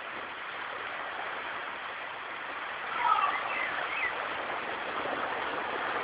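Swimming-pool din: a steady wash of splashing water and children's voices, with a brief higher-pitched shout about three seconds in.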